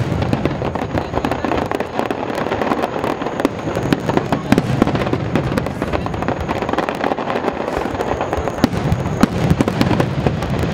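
Aerial fireworks barrage: shells bursting in rapid, overlapping succession, a dense continuous run of booms and sharp cracks with no pause.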